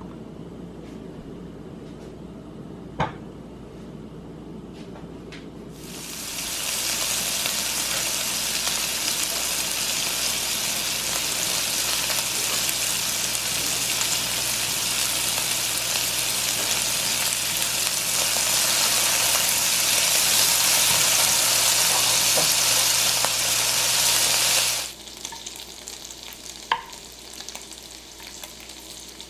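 Thick-cut bacon pieces sizzling as they fry in a pan. The sizzle builds in about six seconds in, runs loud and even, then cuts off suddenly near the end. A single sharp click comes before it.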